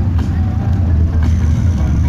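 Music with drums and percussion, its beats striking about once a second over a steady low rumble.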